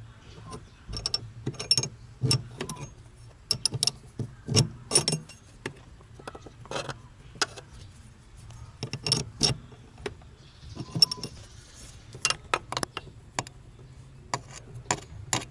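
Irregular metallic clicks and clinks of a spanner working the lock nut on a brake pedal push rod, loosening it.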